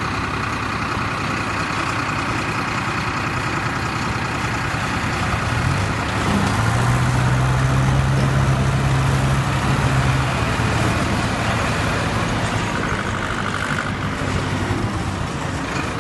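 Farmtrac tractors' diesel engines running as they drive in a line. The nearest engine gets louder and deeper from about six to ten seconds in, then settles back.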